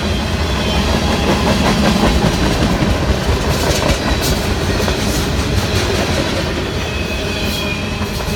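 Freight cars of a long Canadian Pacific freight train rolling past at close range: a loud, steady rumble of wheels on rail with repeated clicks over the rail joints.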